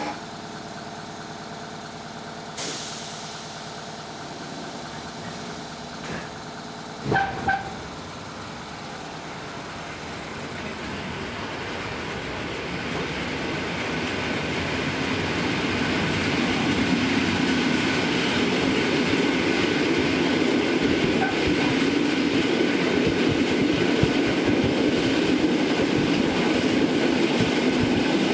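Train running on rails beside a line of open freight wagons, heard from aboard an EN57 electric multiple unit: wheels rumbling and clattering over the rail joints. The noise grows steadily louder through the first half and then holds, with two short, loud high tones just after seven seconds in.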